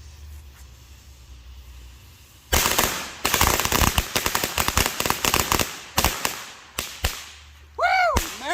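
A string of firecrackers going off in a rapid, irregular run of loud cracks for about four seconds, starting a couple of seconds in, then a few last pops. A voice shouts near the end.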